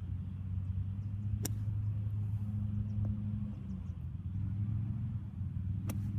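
A motor engine running steadily nearby, a low rumble with a few steady tones in it. Over it come two sharp clicks of a golf club striking the ball out of sand, about a second and a half in and near the end.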